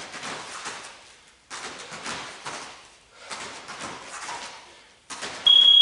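Bare feet shifting and landing on foam martial-arts mats during a taekwondo footwork drill: a sudden scuffing noise about every two seconds that fades out each time. Near the end a loud, steady, high electronic timer beep starts, marking the end of the work interval.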